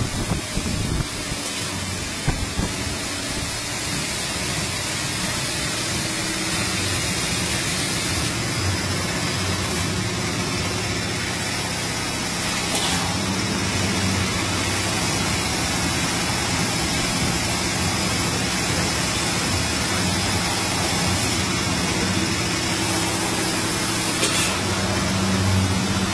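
Steady hiss with a low hum from a CNC fiber laser tube-cutting machine running, with a few short clicks in the first couple of seconds and two sharp ticks later on.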